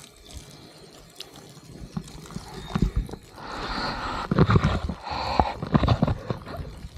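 Water from a pump-fed hose splashing onto newly cast concrete to cure it. The water grows louder about three seconds in, and a few low thumps come through it.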